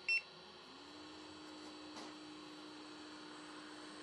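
JBC hot air rework station beeping once as it is switched on, then its air pump spinning up, rising briefly in pitch and settling into a steady hum with a faint hiss of air.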